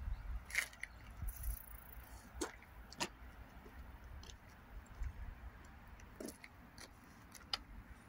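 Wind rumbling faintly on the microphone, stronger in the first half, with about six sharp clicks scattered through.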